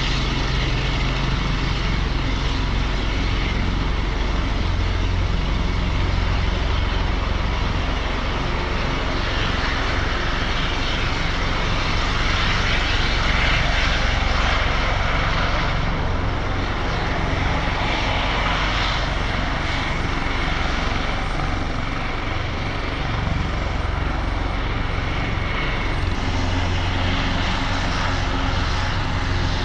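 Helicopter rotor and turbine noise, steady and loud throughout: an Airbus H225 twin-turbine helicopter turning its rotors on the ground, with a Robinson R44 hovering close by.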